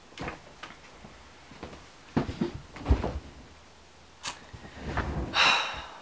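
A few knocks and thumps as someone moves about close to the camera, the loudest about three seconds in, then a sharp click and a longer rustling scrape near the end as the camera is picked up and handled.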